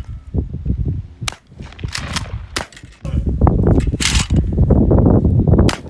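Several sharp shotgun shots at clay targets, the two strongest about four seconds in and near the end, over heavy wind rumble on the microphone.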